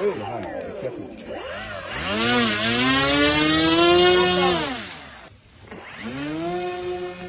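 Small model-aircraft motor running and changing speed: its pitch rises, holds high for a couple of seconds, drops away to a low point about five seconds in, then climbs again and holds steady.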